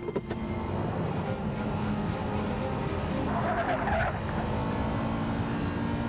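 Car engine running hard as the car pulls away, after a clunk from the automatic gear lever at the start, with a short burst of tyre squeal about three and a half seconds in.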